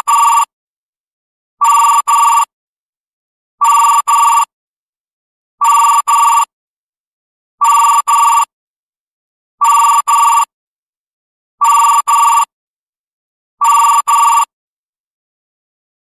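Electronic office desk-phone ringtone: short double rings of a two-pitch electronic trill, repeating every two seconds, eight times, then falling silent near the end.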